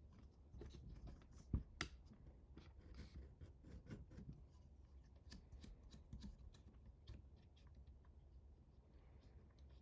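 Faint scattered clicks, taps and scrapes of small parts and tools being handled during printer assembly, with two sharper knocks close together about a second and a half in.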